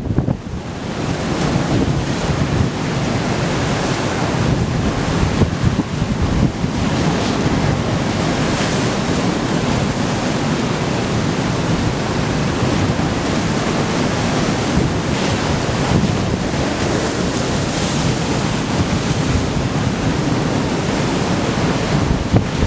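Heavy storm surf breaking and strong wind buffeting the microphone: a dense, continuous rush with a heavy low rumble and gusty surges.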